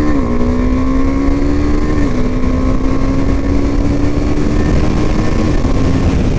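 KTM Duke 390's single-cylinder engine under hard acceleration, its pitch rising through each gear and dropping at quickshifter upshifts made without the clutch: right at the start, about two seconds in, and a smaller one about five and a half seconds in.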